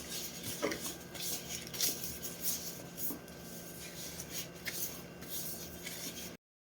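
Adhesive tape being pulled and rubbed onto a swollen ankle, taped against the edema: a string of short rasping, rubbing strokes. The sound cuts off abruptly near the end.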